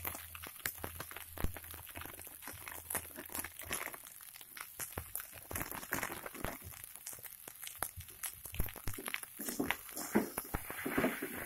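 A perforated metal spatula clinks and scrapes irregularly against an aluminium wok while stirring fried rice. A plastic seasoning sachet crinkles as it is shaken over the rice. The scraping gets busier near the end.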